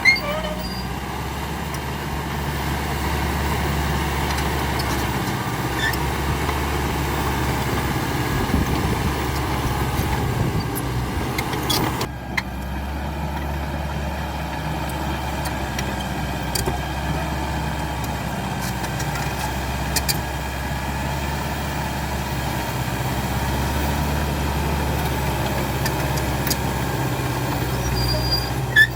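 CAT D5K XL bulldozer's diesel engine running steadily under work, with a few sharp clicks and knocks over it.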